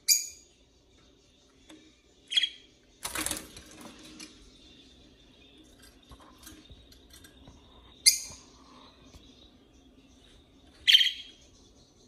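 Budgerigars giving short, sharp chirps, four of them spaced a few seconds apart. A brief rustling noise comes about three seconds in.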